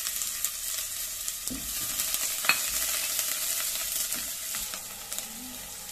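Chopped onion sizzling in hot oil in a pot as it is stirred with a silicone spatula, with small scraping clicks and one sharper click about two and a half seconds in.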